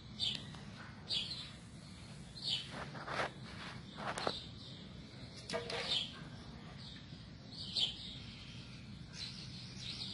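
Birds chirping in short calls every second or two. Light knocks and clinks come from a stainless steel bowl being lifted from its wooden stand, a few around the middle.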